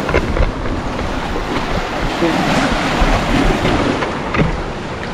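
Small waves washing and splashing against shoreline rocks, with a few sharper splashes, and gusting wind buffeting the microphone.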